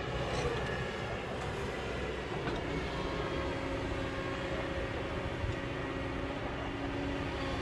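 Kobelco hydraulic excavator's diesel engine running steadily under load as the machine digs, with a few faint knocks.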